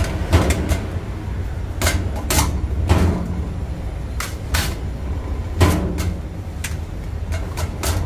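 Bakery work: sharp, irregular knocks and clatters, about fifteen in eight seconds, over a steady low machine hum.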